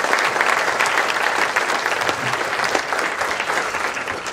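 Audience applauding, a dense steady clatter of many hands clapping that slowly eases off near the end.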